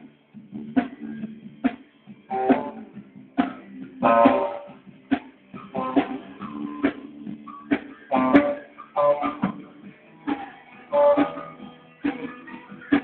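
Guitar being played: a run of picked and strummed notes and chords, each one struck sharply and left ringing, in a loose, uneven rhythm.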